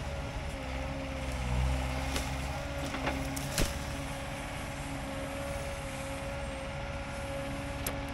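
Excavator engine running under load as its ripper tooth tears stumps and roots out of the ground, with a low rumble that swells and eases and a steady high whine. A single sharp crack about three and a half seconds in.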